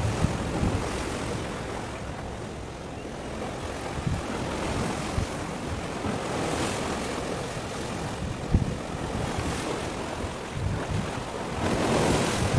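Wind buffeting the microphone over the wash of sea waves, with low gusty rumbles and thumps and two swells of surf noise, one midway and one near the end.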